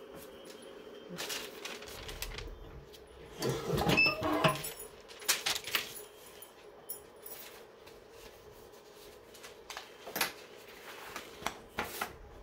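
Swing-away heat press being closed: paper rustling and hands placing the item, then a cluster of clunks and rattles about four seconds in as the upper platen is swung over and clamped down, followed by scattered clicks.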